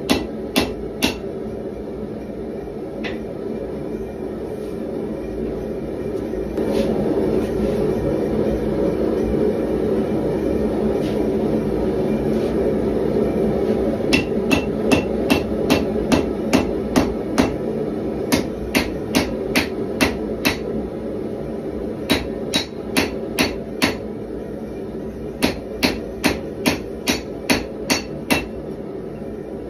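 Hand hammer striking red-hot 1095 carbon-steel bar stock on an anvil, forging a knife blade: a few blows at the start, then from about halfway, runs of sharp ringing strikes about two a second with short pauses between runs. A steady rushing noise from the forge burner runs underneath.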